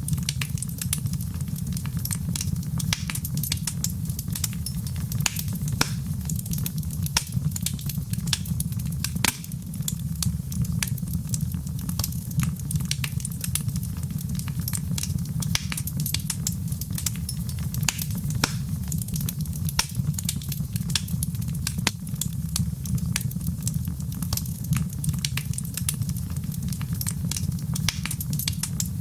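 Wood fire crackling in a fireplace: a steady low rumble of flames with dense, irregular snaps and pops.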